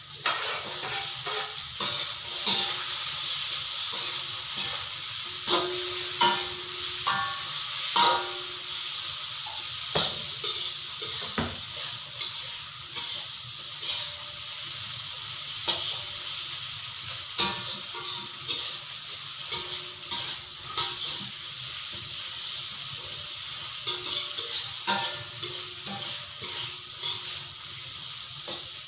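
Squid stir-fry sizzling in hot oil in a metal wok. The sizzle jumps up just after the start as the chopped seasonings go in, and a spatula knocks, scrapes and clinks against the pan as it is stirred.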